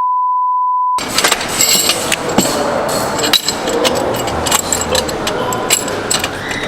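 A steady high beep ends about a second in, then workshop clatter: repeated metal clicks, clinks and knocks of hand tools on exhaust parts as a downpipe and its clamp are fitted.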